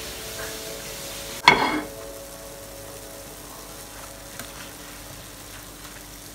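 Puff-puff dough balls deep-frying in hot oil in a stainless steel pot: a steady sizzle. About a second and a half in comes one sharp clank with a brief ring.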